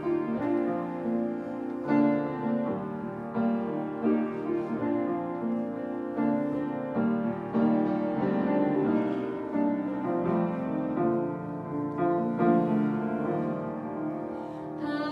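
Piano playing the instrumental introduction to a song, one chord or note after another with no voice yet.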